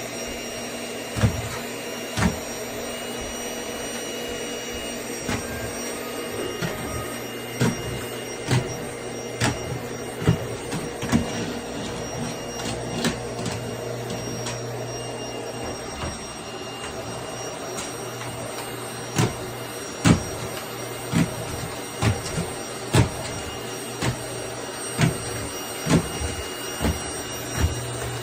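Vacuum cleaner running steadily with a low hum, with frequent sharp knocks and clicks from the nozzle striking the floor and furniture as it is pushed about. The knocks come more often and louder in the second half.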